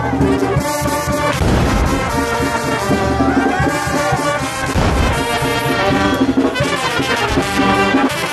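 Brass band playing, with trumpets and trombones sounding held notes in a loud, dense texture. Deep thumps come through about a second and a half in and again around five seconds.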